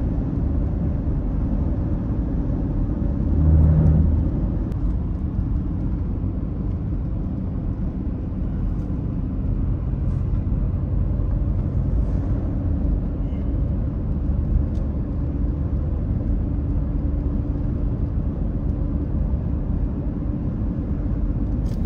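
Steady road and engine noise heard from inside a vehicle's cab while driving at highway speed, with a brief louder swell about three and a half seconds in.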